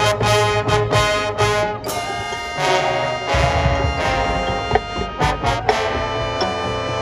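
A high school marching band's brass section playing a country-music arrangement: short accented chords at first, then longer held notes, with low bass notes coming in a little after three seconds.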